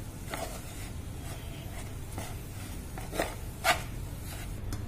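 Wooden spatula stirring and scraping a dry, crumbly mixture of ground almonds, cashews and dates in a pan: a few soft scrapes and knocks, the loudest two a little after three seconds in.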